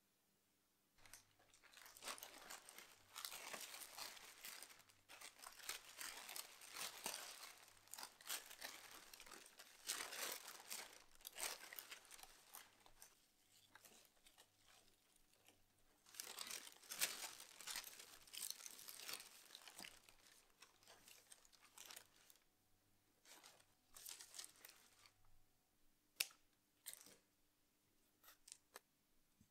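Paper wrapping crinkling and rustling in irregular bursts as cut flowers and eucalyptus stems are handled on it, with a few sharp clicks near the end.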